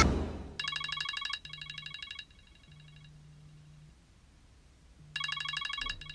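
Mobile phone ringing with a trilling electronic tone and a low buzz under it. It starts about half a second in, breaks up and fades over the next two seconds, then comes back loud about five seconds in.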